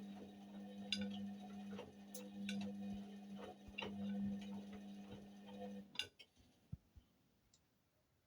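Indesit WIUL83 front-loading washing machine humming steadily with light scattered clicks and ticks, early in a 30°C daily wash. The hum stops abruptly about six seconds in, leaving near silence.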